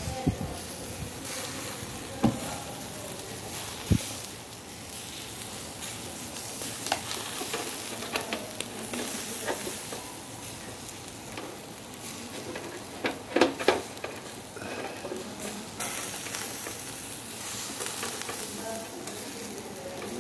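Skewers of lamb liver and sheep-tail fat sizzling over hot charcoal: a steady hiss with scattered small pops. A few sharp knocks stand out, with a quick cluster of them about two-thirds of the way through.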